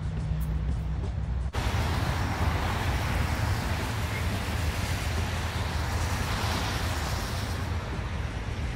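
Steady outdoor background noise: a rushing hiss over a low rumble, which starts abruptly about a second and a half in, replacing a lower steady hum.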